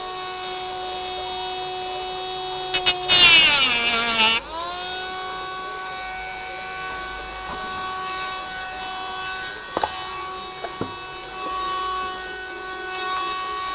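Milling machine spindle running with a steady whine. About three seconds in the cutter bites into the ukulele's wooden body: it gets loud and the motor's pitch drops sharply under the load for about a second before climbing back, with a few sharp clicks later on.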